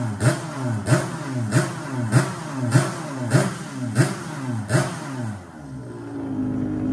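Freshly rebuilt Yamaha RD 135 two-stroke single, converted to crankcase reed intake, bored to 176 cc and running on methanol, revved in about eight quick, evenly spaced throttle blips. About five and a half seconds in it drops back to a steady idle.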